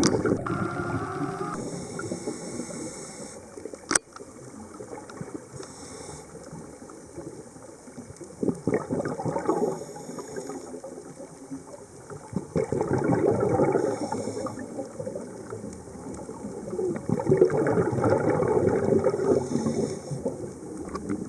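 Underwater bubbling: long gurgling spells of air bubbles that come and go several times, with a single sharp click about four seconds in.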